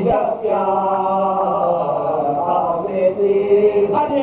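Several men chanting a marsiya, the Urdu elegy, together in soz style, holding long drawn-out notes. The phrase breaks off just after the start, and a new line begins at a different pitch near the end.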